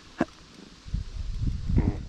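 Handling noise from an angler in a float tube playing a hooked fish on a bent spinning rod. There is a single sharp click, then from about a second in irregular low knocks and rubbing close to the chest-mounted camera, with a short rush of noise near the end.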